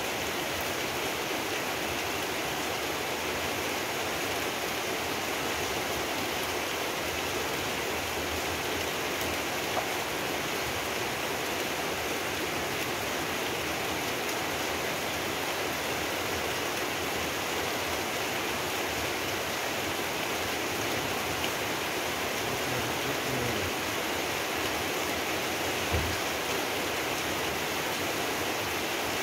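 Steady rain falling, an even hiss. Two soft knocks of a cleaver on a wooden chopping board, one about ten seconds in and a louder one near the end.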